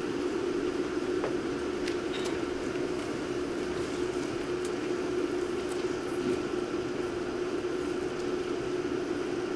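Steady hum with a faint higher tone above it and a few faint clicks; no voices or music.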